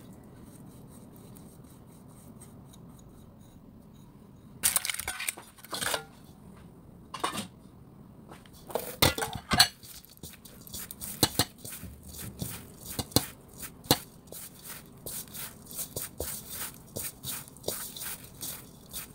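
Bread dough ingredients being mixed by hand in a large stainless steel bowl. After a few quiet seconds come bursts of scraping and clatter against the bowl, then a run of short taps and knocks that grows quicker near the end.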